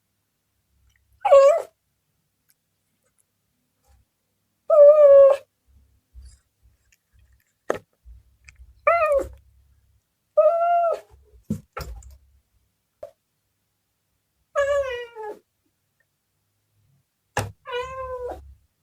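Domestic cat meowing six times, a few seconds apart, each meow short, with a few sharp clicks in between.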